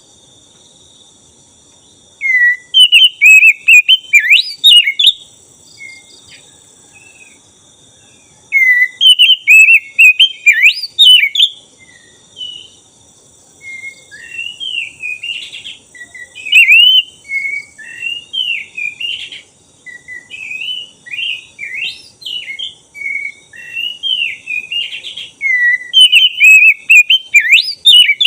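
Black-breasted oriental magpie-robin (kacer dada hitam) singing loudly in runs of rapid whistled, warbling notes and quick up-and-down sweeps, with short pauses between runs in the first half and near-continuous song after that.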